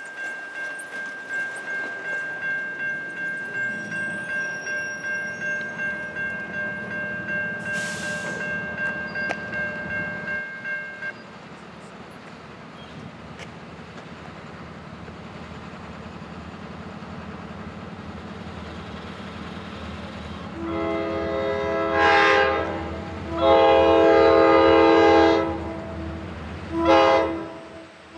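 Railroad grade-crossing bell ringing about twice a second, stopping about eleven seconds in once the gates are down. Under it, the low rumble of an approaching Norfolk Southern diesel freight train grows. From about twenty seconds in, the locomotive's multi-tone horn sounds the crossing signal: two long blasts, a short one, and a final long blast beginning at the very end.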